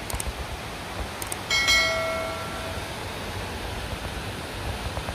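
Steady hiss of heavy rain and wind, with short mouse clicks and then, about a second and a half in, a bright bell ding that rings out for about a second: the sound effect of a YouTube subscribe-button and notification-bell animation.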